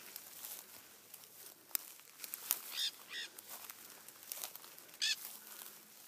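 Parrots calling from a bush, giving a few harsh squawks: two close together about three seconds in and a louder one near the end. A few sharp clicks are heard between the calls.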